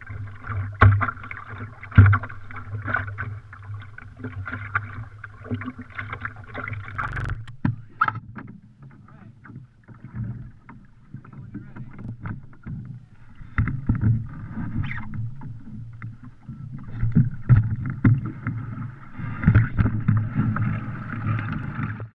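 Water sloshing and slapping against the hull of a wooden Northeaster dory under way, with many short knocks from the boat. The sound changes abruptly about seven seconds in.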